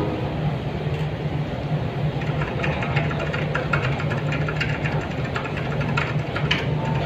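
A steady low rumble like an engine running, from the show's opening soundscape played over the hall's speakers, with a rapid patter of short clicks from about two and a half seconds in.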